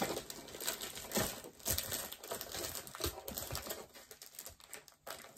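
Plastic packaging of a diamond-painting coaster kit crinkling, with scattered light clicks and taps as it is handled and set aside; the handling dies down near the end.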